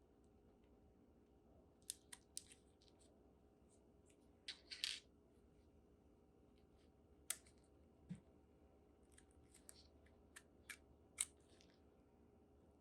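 Faint handling sounds of a smartphone and its packaging: scattered small clicks and taps, about a dozen, with one short scraping rustle a little before the middle.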